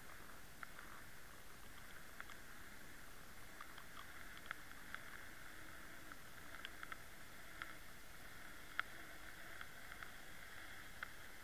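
Underwater sound picked up by a camera towed on the fishing line ahead of an umbrella rig: a steady faint hiss with irregular sharp clicks, the loudest about nine seconds in.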